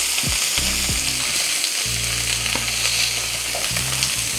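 Salmon fillets frying in hot oil in a stainless steel pan, a steady sizzle, as they are turned over with tongs partway through cooking.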